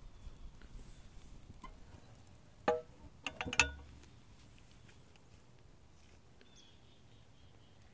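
Burning tyre fire crackling with scattered small pops, then a few louder sharp knocks with brief ringing about three seconds in, after which the crackle fades to a faint background.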